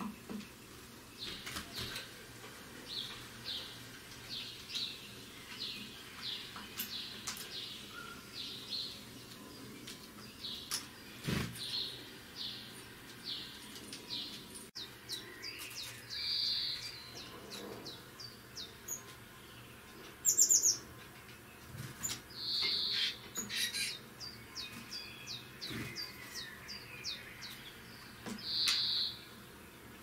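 Great tit calls: short high chirps repeated about twice a second, with a few louder notes in the second half. A brief, very high squeak about two-thirds of the way through is the loudest sound, and a single knock comes about a third of the way in.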